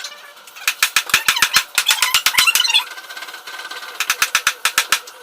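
Rapid runs of sharp cracks that sound like gunfire, about eight a second: one lasting about two seconds starting about a second in, and a shorter one near the end, over a faint steady whine.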